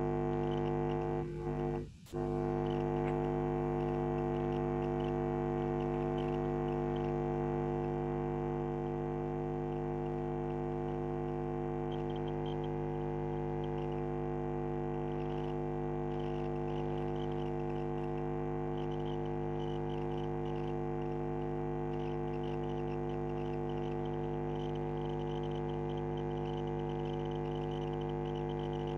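Steady electrical mains hum: a buzz with many evenly stacked overtones that holds constant, briefly dropping out about two seconds in.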